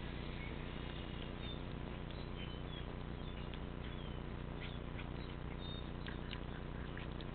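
A cat chewing on a live frog: faint, brief high squeaks and small crunching clicks over a steady low hum. The squeaks come mostly in the first half, which the uploader takes for the frog's cries, and the clicks bunch up in the second half.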